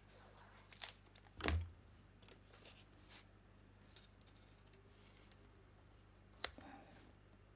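Paper being handled on a craft mat: a card strip laid onto a card base and pressed down, with light rustles and clicks. There is a soft thump about a second and a half in, and a sharper click near the end.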